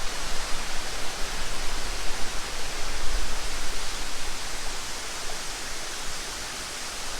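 Waterfall rushing, a steady loud roar of falling water.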